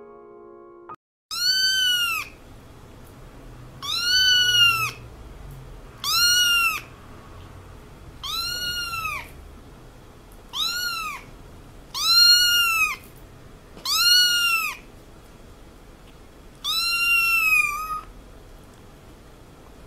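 A small kitten meowing: eight high-pitched mews about two seconds apart, each rising and then falling in pitch. A few steady music notes die away in the first second, before the meows begin.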